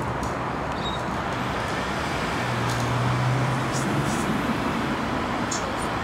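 Steady road traffic noise, with a vehicle's low engine hum growing louder for a second or two in the middle.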